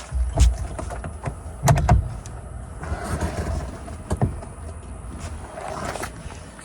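Irregular clicks and knocks of things being handled, with louder low thumps about half a second, two seconds and four seconds in.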